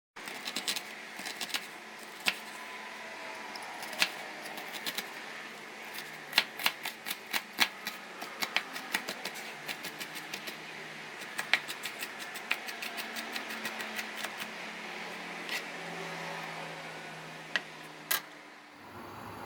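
Kitchen food preparation: sharp clicks and knocks of utensils, at times in quick runs of a few a second, over a steady hiss.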